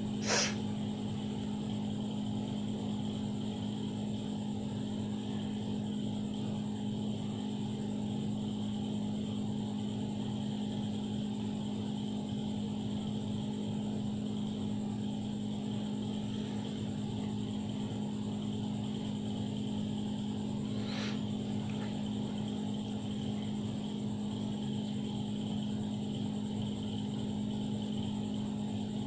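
Steady mechanical hum of a small motor running, with a strong low drone and a fainter high whine. A short click about half a second in and another about two-thirds of the way through.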